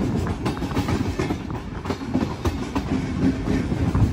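Sleeper train rolling along at low speed, the wheels of the 1950s stainless-steel P-type sleeper car clattering irregularly over rail joints and pointwork over a steady rumble of running gear.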